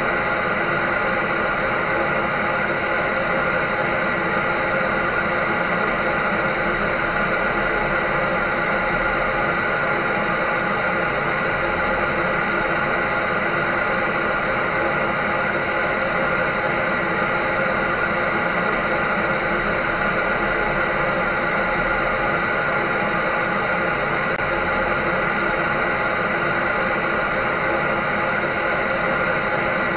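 Clothes dryer running: a steady whir and hiss with a few held tones, unchanging throughout.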